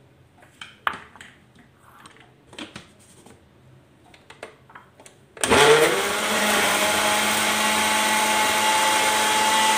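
Light clicks and knocks as the plastic blender jar and lid are handled. About five and a half seconds in, an electric countertop blender spins up with a brief rising whine and runs steadily at full speed, blending a mango milkshake mixture of milk, mango, wafers and sugar.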